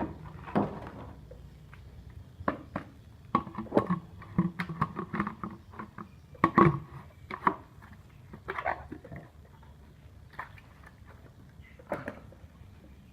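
Irregular knocks and light clatter of containers being handled while medicated drinking water for chickens is being mixed, busiest in the middle of the stretch.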